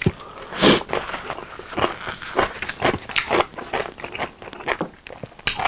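Close-miked nose-blow into a paper tissue, with the tissue crinkling, then chewing and lip smacks from a mouthful of noodles: short sharp sounds about twice a second.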